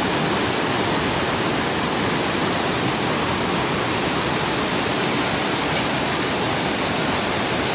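Waterfall rushing: a large mountain waterfall's water cascading down, a steady, loud hiss.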